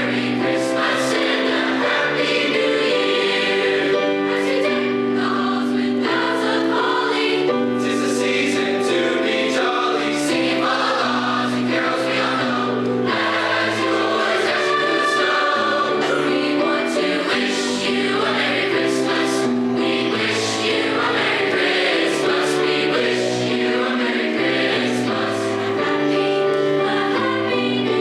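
High school choir singing a Christmas song, several sustained parts moving together in harmony.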